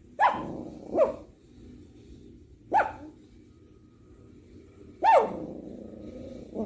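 A dog barking in single, sharp barks, five in all at uneven intervals, each one dropping in pitch.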